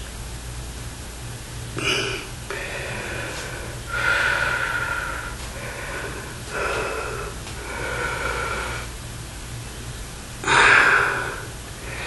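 A man breathing out forcefully in a series of about eight separate breaths, the loudest about ten and a half seconds in, over a steady low hum.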